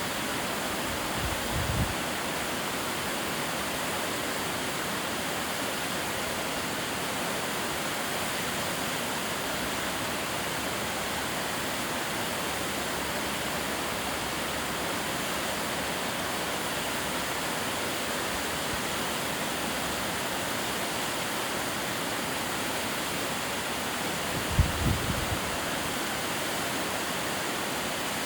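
Shirahige Falls waterfall rushing steadily, a constant even hiss of falling water. Two short low thumps break through, one about a second and a half in and a louder one near the end.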